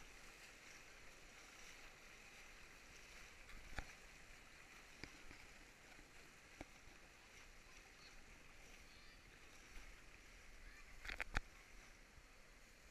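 River water rushing steadily and faintly, with a few short knocks or splashes. The loudest pair comes about eleven seconds in.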